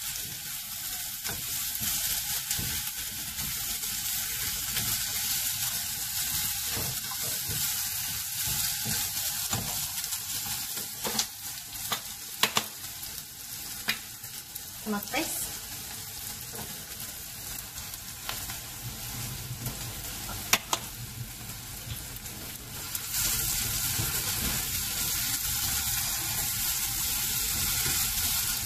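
Diced onion, garlic and anchovies sizzling as they sauté in a small saucepan, with a spatula stirring through them and a few sharp clicks in the middle. The sizzle gets louder from about 23 seconds in.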